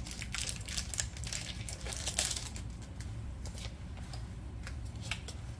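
Foil wrapper of a Pokémon booster pack crinkling and tearing as it is ripped open, with the cards shuffled out of it: a run of short crackles, busiest in the first two seconds, then a few scattered ones.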